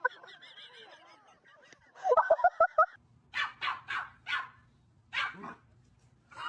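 A dog whining faintly, then a quick run of high yips about two seconds in, followed by several barks.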